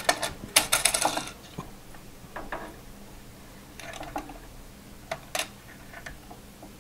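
Small, sharp clicks and taps of a CPU chip and fingertips against the metal of an AM5 motherboard socket and its retention bracket as the processor is seated. A quick run of clicks comes in the first second, then single ticks every second or so.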